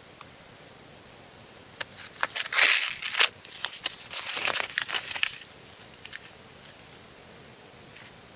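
Paper label being torn and crumpled off a plastic rope winder. It is a burst of crinkling and tearing from about two seconds in to past the five-second mark, loudest near the start of the burst.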